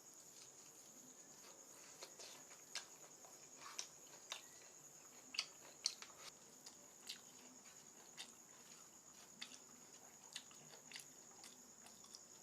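Faint, scattered mouth clicks and smacks of someone eating rice and mutton curry, over a steady high insect trill.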